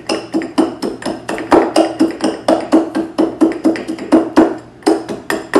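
A bar muddler pounding dried cinnamon, cloves and coriander seed inside a glass jar, crushing them to open them up for infusion. Quick, hard, regular strikes, about four a second, each knock with a short glassy ring.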